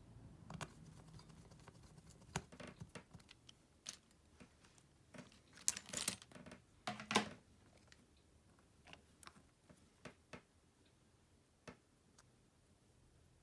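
Light clicks and taps of small tools and parts on a Samsung Galaxy M31s being handled during repair, scattered irregularly, with a cluster of louder clicks about six to seven seconds in.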